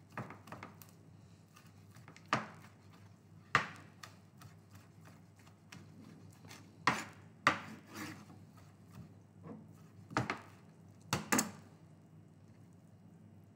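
A chef's knife chopping cooked mutton on a plastic chopping board: about a dozen sharp, irregularly spaced knocks of the blade on the board, with fainter taps between. The knocks stop near the end.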